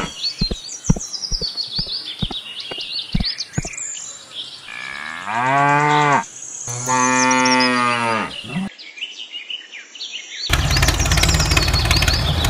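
Cow mooing twice in the middle, two long calls, the first rising then falling. Before that comes a quick run of knocks with birds chirping high above. About ten seconds in, a steady engine sound starts running.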